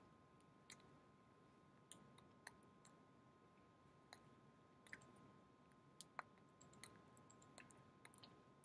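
Near silence: faint room tone with a steady, faint hum, broken by scattered small clicks at irregular intervals.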